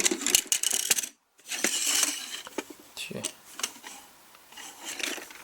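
Plastic clicking and clattering as a cheap electronic soft-dart shooting target is handled and turned over. The sound cuts out completely for a moment about a second in.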